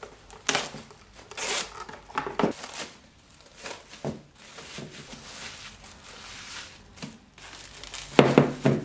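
Irregular rustling, rubbing and scraping noises in short separate bursts, with a louder cluster near the end.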